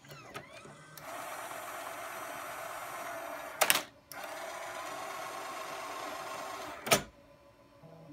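Jukebox Five automated floppy changer working with the Macintosh IIci's floppy drive. A steady mechanical whirr runs for a few seconds, then a loud clack. A second stretch of the same whirr follows, ending in another loud clack near the end.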